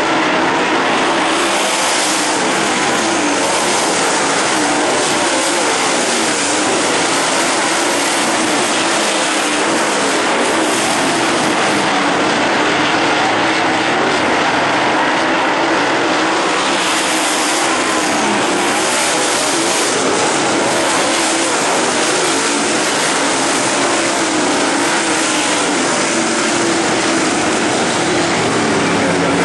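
Several dirt late model race cars' V8 engines running at racing speed around a dirt oval, a loud, steady drone whose pitch wavers up and down as the cars pass and turn.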